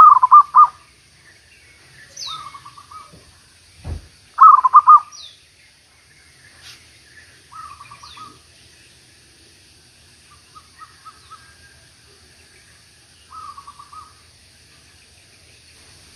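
Zebra doves cooing: repeated short, rapidly pulsed coo phrases. Two loud ones come close by, at the start and about four seconds in, and several fainter ones answer between them. A few short falling whistles from another bird and a dull thump just before the second loud phrase are also heard.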